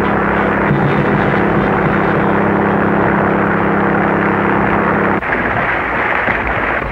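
Small motorboat's engine running at a steady pitch over a rushing wash of noise. The engine tone stops about five seconds in, leaving the rushing noise.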